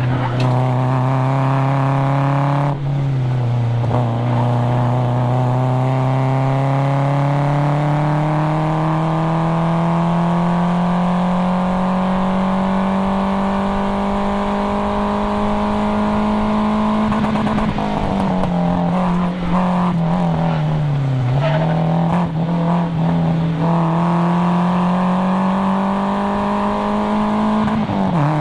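Nissan 240SX's 2.4-litre KA24DE four-cylinder engine pulling hard through the rev range, with a cat-back exhaust. Its pitch drops at a gear change about 3 seconds in, then climbs slowly for a long stretch. Around the middle it falls off and picks up again amid some rougher noise, and it drops again with a shift near the end.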